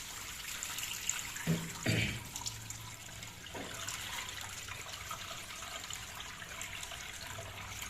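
Dirty water trickling steadily out of the opened drain-pump filter of a Samsung front-loading washing machine. The filter is clogged with debris, which is why the machine will not pump out and spin.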